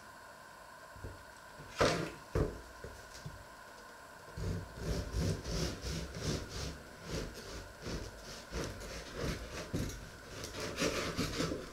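A bread knife sawing back and forth through a loaf of dark bread on a wooden cutting board, a run of rasping strokes about three a second. Two knocks come about two seconds in, before the sawing starts.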